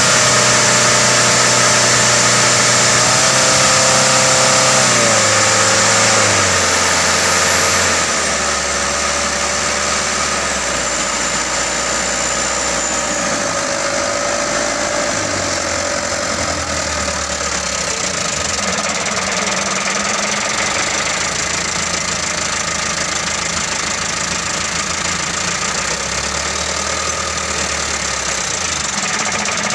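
Mitsubishi Canter 125 truck's diesel engine running, its injection pump just adjusted to cure hard starting. The revs rise briefly about four seconds in, drop between about six and eight seconds, and the engine then runs steadily at a lower speed.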